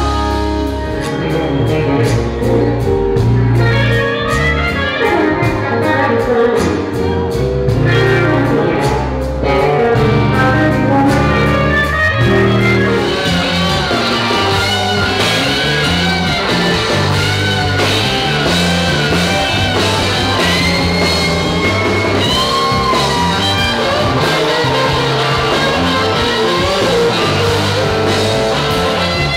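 Electric blues-rock band music, with a lead electric guitar over bass and drums. About 13 seconds in it changes to a different passage, where the lead guitar bends its notes.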